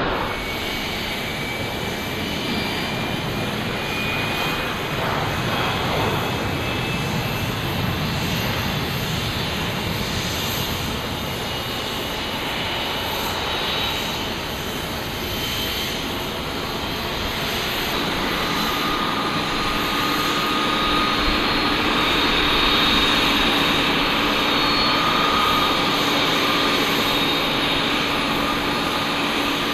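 Boeing 787-9's GE turbofan engines running at low power as the airliner rolls along the runway and taxis: a steady jet rumble with a faint high whine. Partway through, a steadier hum joins in and the sound grows louder as the jet comes closer.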